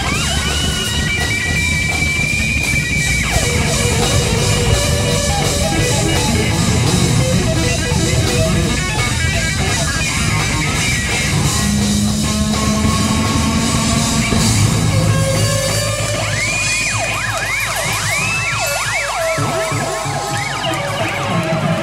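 Live rock band recording: guitar over a busy bass and rhythm. In the last few seconds, high notes swoop rapidly up and down in a siren-like way.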